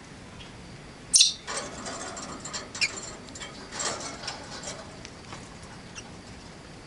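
Rosy-faced lovebirds calling: a sudden shrill shriek about a second in, then a few seconds of high, scratchy chirps and chatter that die down.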